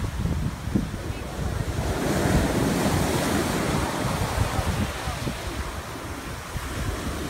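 Ocean surf rushing in, swelling about two seconds in and easing off, with wind buffeting the microphone in low gusty rumbles.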